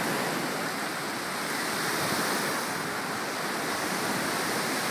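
Lake Michigan waves breaking along a sandy shore: a steady wash of surf.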